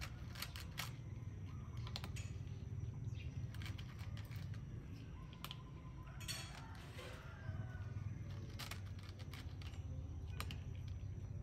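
Cat crunching dry kibble from a plastic tray: irregular small crisp clicks, over a steady low hum.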